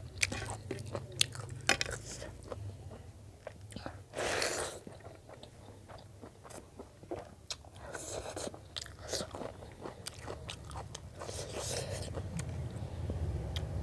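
Close-miked chewing and crunching of food, with a run of sharp crunches in the first two seconds and brief louder rushes of sound about four, eight and eleven seconds in, over a low steady hum.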